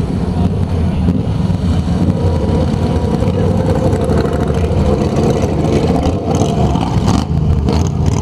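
Small engines of a group of racing lawn mowers running as they circle the dirt track, with one mower passing close near the end.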